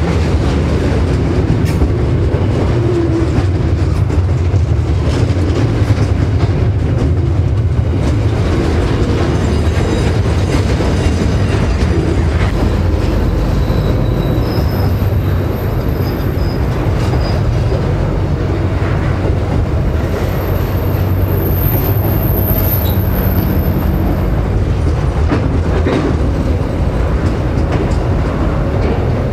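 Container wagons of a freight train rolling past close by: a steady rumble of steel wheels on rail with clicks over the rail joints, and a thin, high wheel squeal that comes and goes around the middle and again a little later.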